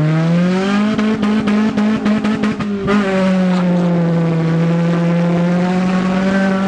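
First-generation Honda CR-V's four-cylinder engine heard from inside the cabin, rising in pitch in the first second and then held at a steady pitch under load while driving hard on a dirt trail. A quick run of knocks and rattles comes between about one and three seconds in as the car crosses rough ground.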